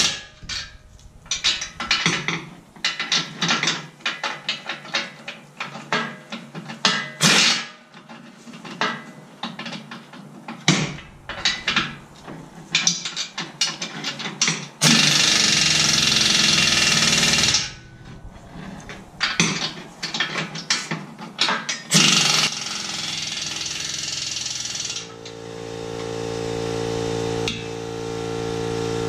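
Pneumatic impact wrench hammering the 22 mm bolts of the engine hoist's support arms tight, in many short bursts and a few longer runs of a second or two. About three-quarters of the way through, a steady machine hum starts and carries on.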